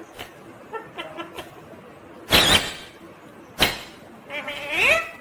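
Indian ringneck parakeet calling: two loud, harsh screeches a little over a second apart, then a shorter call that rises in pitch near the end.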